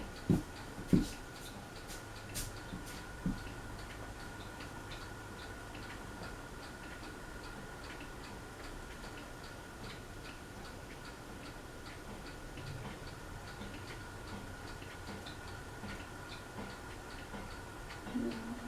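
Craftmade Phoenix ceiling fan running, with a steady hum and a regular light ticking. There are a few low knocks in the first few seconds.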